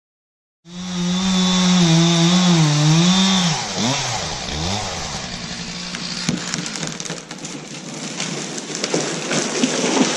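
Chainsaw starting abruptly just under a second in, running at high revs with a wavering pitch that dips and swoops about four seconds in. It then gives way to a rougher, noisier cutting sound with crackles and snaps, as the chain works through a red maple.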